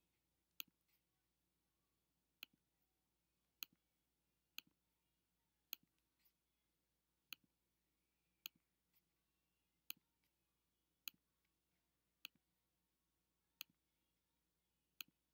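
Computer mouse clicking, about a dozen faint, sharp clicks roughly once a second, each press followed by a softer release click. Otherwise near silence.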